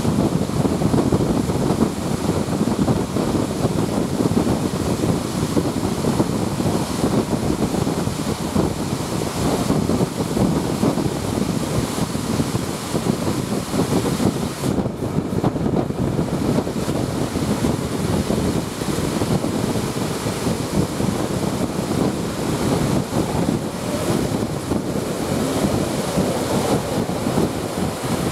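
Steady rush of wind buffeting a microphone held out of a moving train's window, mixed with the train's running noise.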